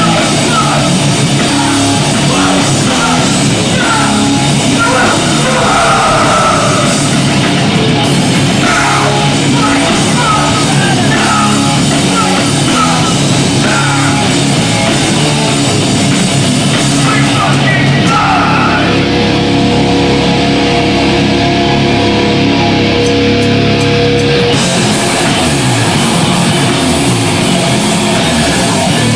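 Hardcore punk band playing live: loud distorted guitars, bass and pounding drums under shouted vocals. About two-thirds of the way through, the vocals stop, the cymbals fall away and a single held note rings for about six seconds before the full band crashes back in.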